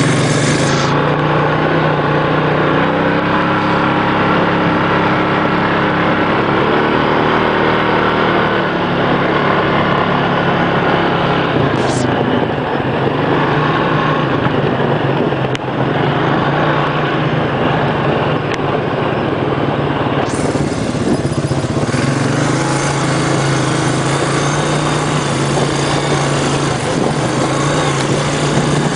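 ATV engine running steadily, its pitch shifting up and down with the throttle, over a constant rushing noise.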